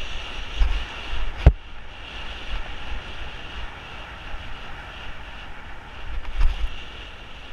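Wind buffeting the microphone over the rolling noise of a fat bike's tyres on a rough paved road during a fast descent, with one sharp knock about a second and a half in.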